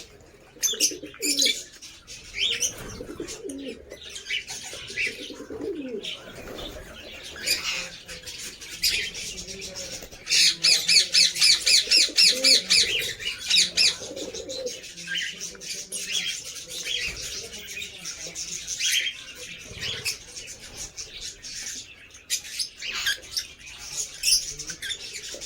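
Lovebirds chirping and chattering, with a fast run of loud, repeated chirps, about six a second, from about ten to fourteen seconds in.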